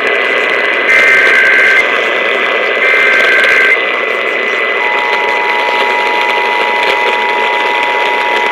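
Emergency Alert System test received over the radio: two short, harsh digital SAME header data bursts about a second apart, then about five seconds in the steady two-tone EAS attention signal begins. Static and a thin, constant high whistle run underneath.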